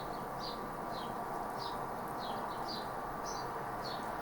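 Small birds chirping repeatedly, short high chirps a few times a second, over a steady background hiss.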